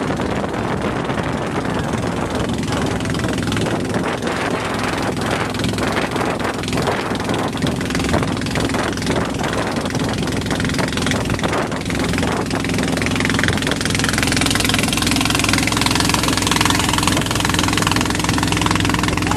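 Engine of a wooden boat running steadily under way, a low rough chugging with wind and water rushing past; the rushing grows louder about two-thirds of the way through.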